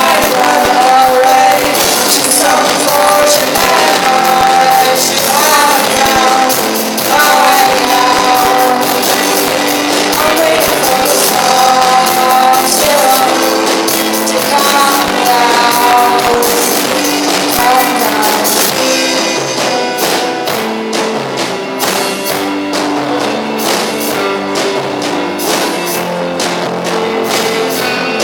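A live rock band playing with a singer. The voice drops out about two-thirds of the way through, and the band plays on with a steady strummed rhythm.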